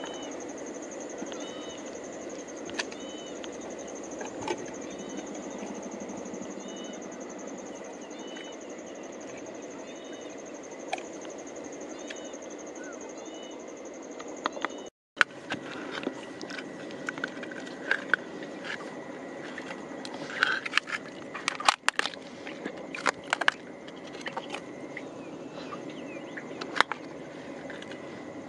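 Knife clicking and tapping against freshwater mussel shells as they are pried open, the taps thickening in the second half. In the first half a steady high insect drone runs with a short bird call repeating about once a second; the drone stops abruptly about halfway through.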